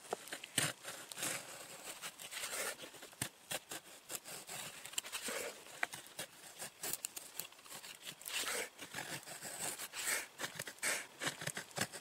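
Knife blade shaving thin curls off a split spruce stick to make feather sticks: an irregular run of short scraping strokes with brief pauses between them.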